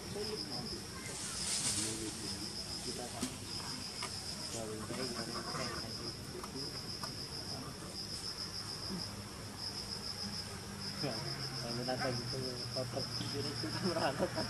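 Insects chirping: a high-pitched trill of rapid pulses that comes in runs of about a second with short breaks between them, repeating steadily.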